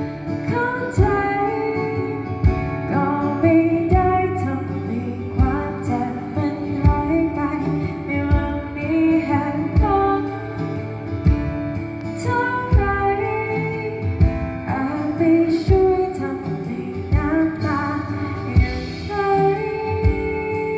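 A live acoustic pop song: a woman singing a slow melody with acoustic guitar accompaniment, a low thump marking the beat about every second and a half.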